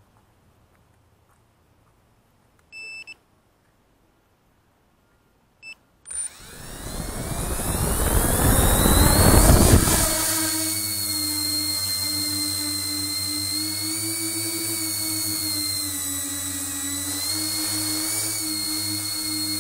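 Two short electronic beeps, then the tricopter's three brushless motors with Graupner 9x5 three-blade propellers spool up with a rising whine about six seconds in. The sound peaks with a rush of propeller wash as the craft lifts off, then settles into a steady hovering whine whose pitch wavers slightly as the throttle is adjusted.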